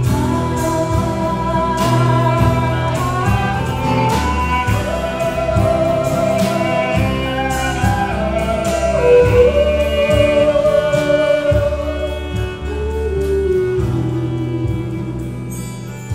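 A live Celtic folk band playing: a fiddle carries a sliding melody over strummed acoustic guitars and a steady drum beat.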